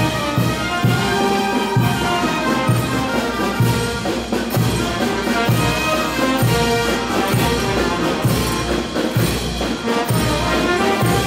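Brass band music with trumpets and trombones over a steady beat, the festive band music that accompanies the Negritos de Huánuco dance.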